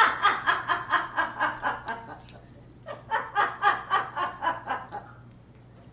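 Yellow-naped Amazon parrot mimicking laughter: two bouts of rapid ha-ha-ha, about six beats a second, with a short pause between them.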